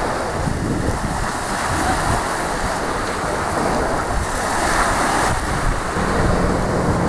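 Small waves washing up on a sandy beach, with gusty wind buffeting the microphone. A faint low steady hum joins about six seconds in.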